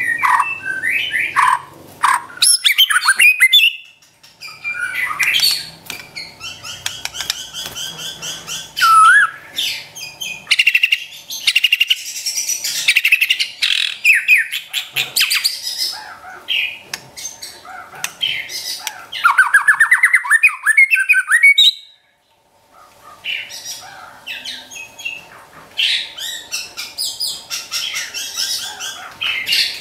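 White-rumped shama (murai batu) singing a long, varied song of clear whistled notes and fast rattling trills, the 'trotol' style. The song breaks off briefly about 22 seconds in, then resumes.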